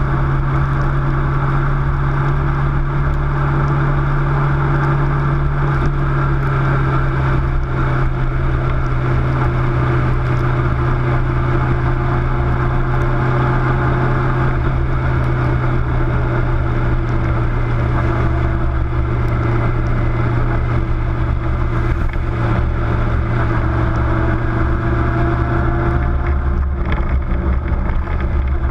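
Car driving along a wet road: steady engine and tyre noise, dominated by a constant low hum, with little change in speed.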